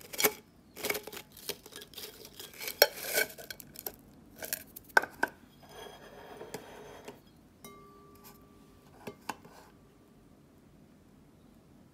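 Pringles crisps sliding out of the can and clattering onto a ceramic plate in a run of light clicks and rattles for about five seconds. A softer rubbing follows, then a few knocks as the can is set down beside the plate.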